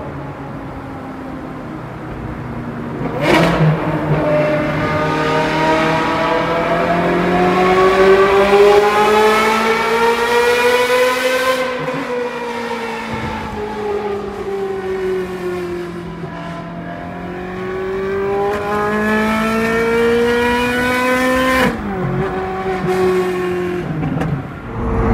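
Ferrari 430 Scuderia's flat-plane V8 with headers and a loud aftermarket exhaust, on the move at part throttle. The engine note climbs slowly, eases back down and climbs again. There is a sharp crack about three seconds in and a brief dip in the note near the end.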